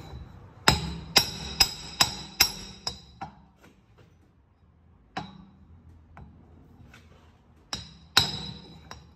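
Hammer tapping a hydraulic cylinder's gland along its rod to seat a tight fit: a run of about five sharp, ringing metallic strikes roughly twice a second, then a few lighter taps, a pause, and two more hard strikes near the end.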